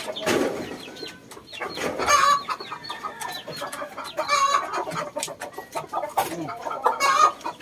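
Shamo chickens clucking: several short calls, a couple of seconds apart.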